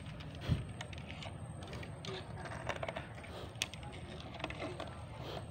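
Fish landing net on a pole being handled at the edge of a bamboo platform: scattered light clicks and knocks, with a soft thump about half a second in and a sharper click a little past the middle.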